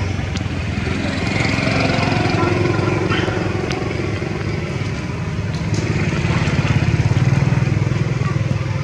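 A small engine running steadily with a low, pulsing rumble that grows a little louder about seven seconds in.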